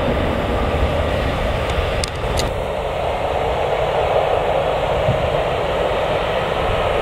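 Jet airliner engines heard from the airfield perimeter: a steady rushing noise with no rise or fall, and an uneven low rumble underneath.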